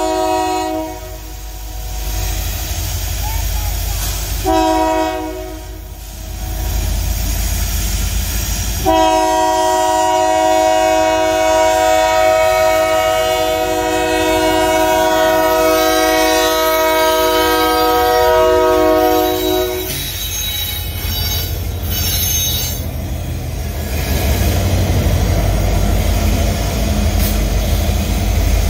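Union Pacific diesel freight locomotive's air horn sounding the grade-crossing signal: the end of a long blast, a short blast about five seconds in, then a final long blast held for about eleven seconds. It stops as the locomotive reaches the crossing and gives way to the rumble of the diesel engines and wheels on the rails as the train passes, growing louder near the end.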